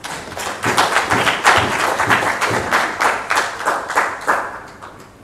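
Audience applauding with many individual claps. It builds over the first second and dies away about four and a half seconds in.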